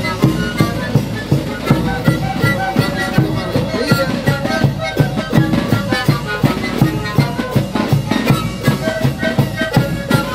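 A sikuri ensemble playing: many siku panpipes sounding short, overlapping breathy notes over a steady beat of bass drums (bombos).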